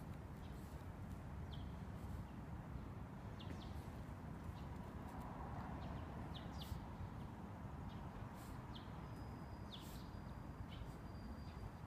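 Birds chirping over a steady outdoor background, with short falling chirps every second or so and a thin, steady high whistle held for about two seconds near the end.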